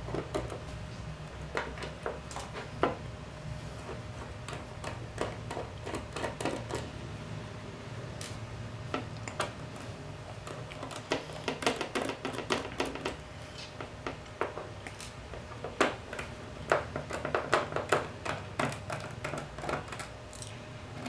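A small screwdriver turning out the cover screws of a Toshiba laptop hard disk: irregular small metallic clicks and ticks, some in quick runs, over a faint low hum.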